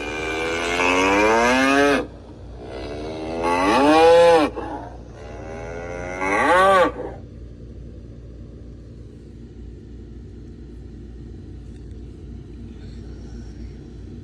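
Bull bellowing: three long bellows in the first seven seconds, each swelling and falling in pitch, the second the loudest. After them only a low steady hum remains.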